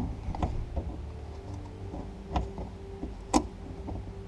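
Scattered clicks and knocks of hands working at plastic headliner trim and wiring plugs inside a car, the sharpest about three and a half seconds in, over a faint steady hum.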